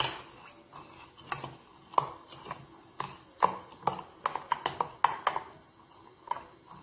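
Metal spoon stirring milk and beaten rice flakes in a glass, clinking irregularly against the glass's sides, the clinks coming faster in the middle.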